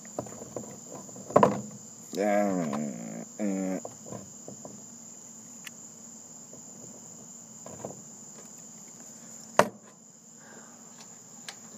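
Crickets chirping in a steady high trill. A few short vocal sounds come between about two and four seconds in, and a sharp click comes near the end.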